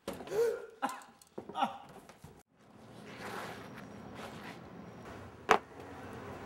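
Brief voice sounds from a person, then a steady background hiss with a single sharp click about five and a half seconds in.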